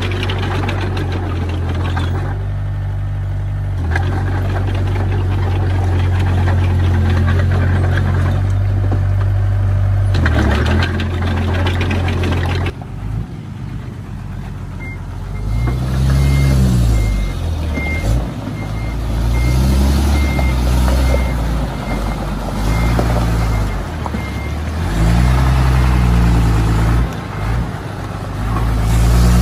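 Heavy diesel machinery working: a steady diesel engine note for the first dozen seconds, then engines revving up and down repeatedly as the machines work. From about halfway, a vehicle's reversing alarm beeps steadily for around ten seconds.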